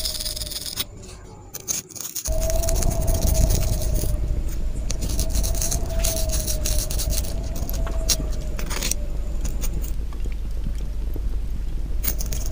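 Metal clicks and scrapes from the action and hammers of a side-by-side double-barrel shotgun being worked by hand, over a steady low hum with a faint wavering tone. The sound drops out briefly about a second in.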